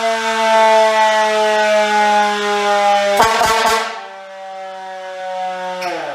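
Fire truck siren winding down: one steady wail sliding slowly lower in pitch. A few clicks come about three seconds in, after which it goes quieter and keeps falling until it dies away near the end.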